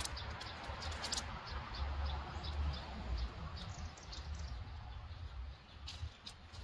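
Tent pole sections clicking together as they are handled and joined, a few sharp clicks, over a low rumble. Faint bird chirps come in about four seconds in.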